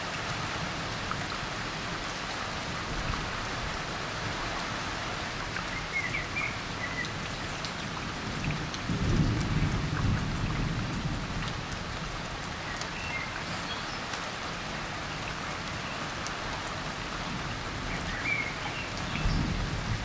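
Heavy, steady rain pattering down in a downpour. A low rumble swells about nine seconds in and again near the end.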